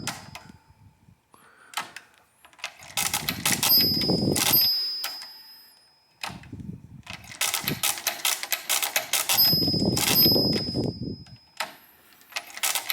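Vaucanson AVA13 pinwheel calculator worked by hand during division: bursts of clicking gear clatter as the crank is turned and the carriage shifted, with the overflow bell pinging a few times. Each ping marks a subtraction that has gone past zero.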